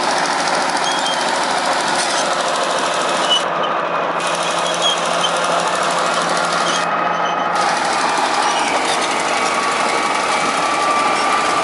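Heavy road-construction machinery running steadily, a loud, even mechanical noise with no breaks.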